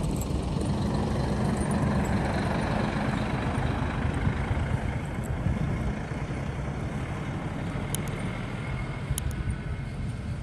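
Coach bus engine running as the bus passes close by and then pulls away over snow, loudest at first and easing off a little as it moves away.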